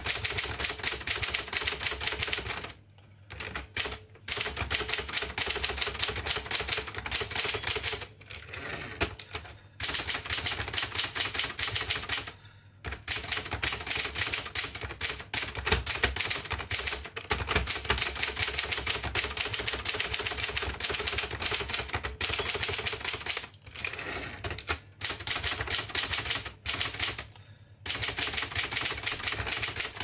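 1958 Adler Special manual typewriter being typed on at a fast pace: a rapid clatter of type bars striking the paper, broken by several brief pauses.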